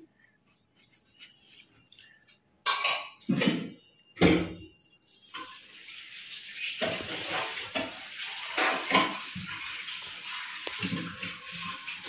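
Dishes and cutlery clattering, then from about five seconds in a water tap running steadily into a sink.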